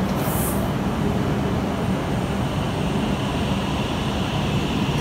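E6 series Komachi Shinkansen train starting to pull away slowly just after uncoupling from an H5 Hayabusa: a steady low rumble of the train and station, with a short high hiss about half a second in and a faint steady high tone coming in partway through.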